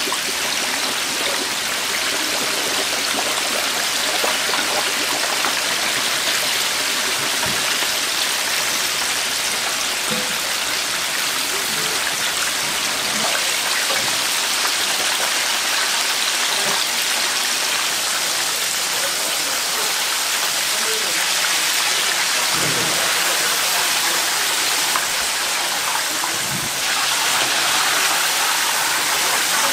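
Chicken deep-frying in a vat of hot oil: a steady hiss of fierce bubbling. Near the end the basket of fried chicken is lifted out, and oil streams and drips back into the vat.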